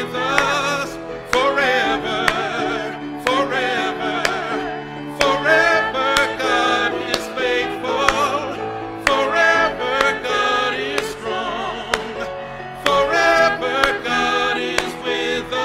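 A man sings a worship song solo, with vibrato, in phrases broken by short breaths, over sustained accompanying notes.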